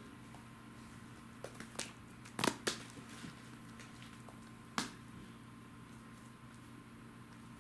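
A steady low hum with a handful of short, sharp clicks and taps: a pair about two and a half seconds in and another near five seconds are the loudest.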